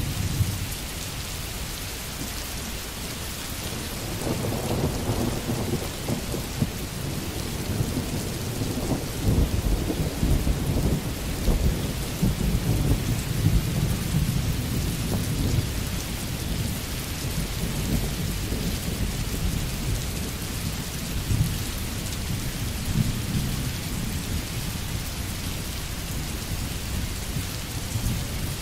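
Rain sound-effect track: steady heavy rain with a long roll of thunder that rumbles up about four seconds in, is loudest near the middle, and dies down over the last few seconds.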